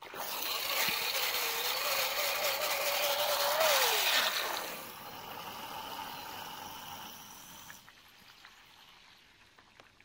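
A 2 kW hair dryer running submerged in a tub of water, its fan churning water and spraying it out of the nozzle at the surface. A motor tone holds steady, then falls in pitch about four seconds in, and the splashing grows gradually quieter.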